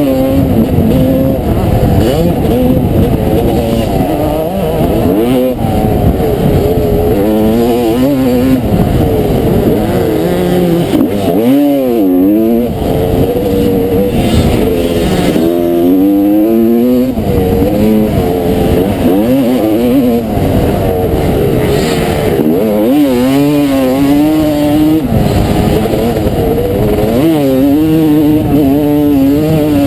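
1989 Honda CR250R's single-cylinder two-stroke engine racing on a motocross track, revving up and falling back again and again as the rider works the throttle, heard from the rider's helmet.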